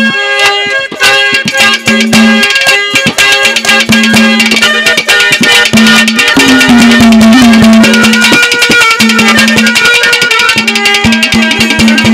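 Haryanvi ragni accompaniment: fast, steady hand-drum strokes under a held melody line that breaks off and comes back, with a few small bends in pitch.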